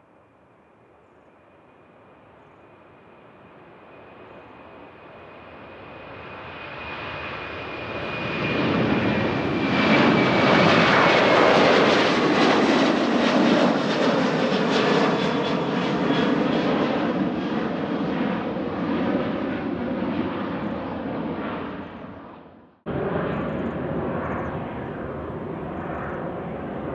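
Jet airliner's engines passing: the noise swells steadily for about ten seconds, a high whine slides down in pitch as the aircraft goes by, and a loud steady rumble follows. About 23 seconds in it cuts off abruptly and another jet's engine noise starts at once.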